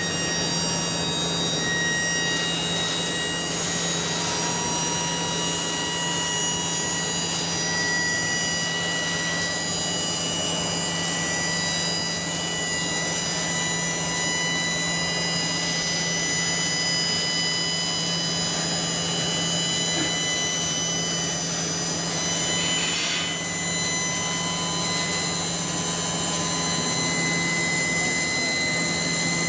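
Electric hydraulic pump running steadily under load as the hydraulic loader bed moves, a constant hum with a high whine that shifts pitch slightly a few times.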